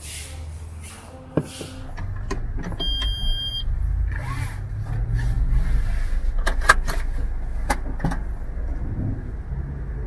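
Car interior: low engine rumble, a short electronic chime about three seconds in, and a run of sharp clicks between about six and eight seconds in as the seatbelt is pulled across and handled.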